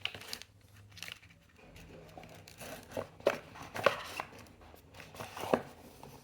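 Packaging and small accessories being handled and set down on a table, with a scatter of light knocks and clicks, several in a row past the middle, and some rustling.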